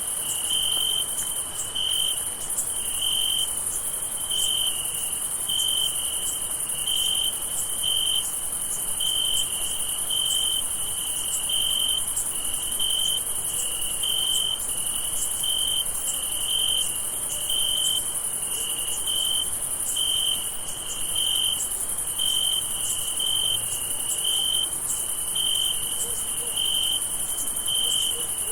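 A night chorus of crickets: a steady high-pitched trill with a lower chirp pulsing about once a second.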